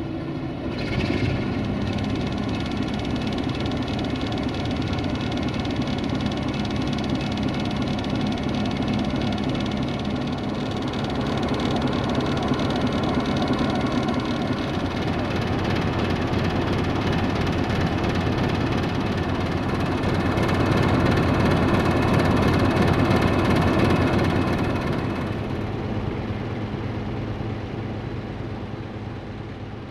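Sulzer 12LDA28 twelve-cylinder diesel engine of an LDE2100 (060-DA) locomotive running steadily just after start-up. It gets a little louder about two-thirds of the way through, then fades out near the end.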